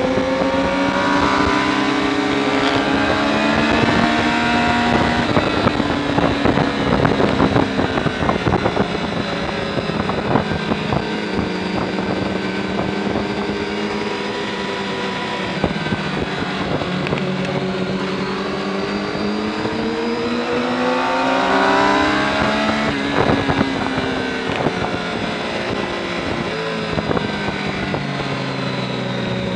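Triumph sport bike's engine heard from on board at track speed. The revs climb, hold and drop as the rider accelerates and slows through the corners. Wind noise gusts across the microphone for a few seconds early on.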